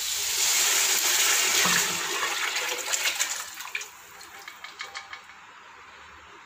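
Liquid poured from a pressure cooker into a hot aluminium pot of fried chicken, a loud steady gush for the first couple of seconds, then breaking into separate drips and splashes as the cooker is tipped empty and dying away about five seconds in.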